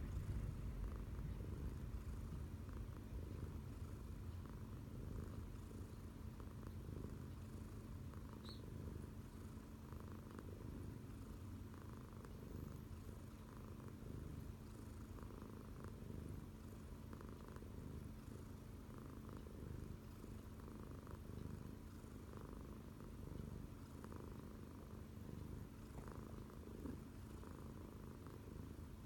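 Domestic cat purring steadily: a continuous low rumble, deep enough to be mistaken for snoring.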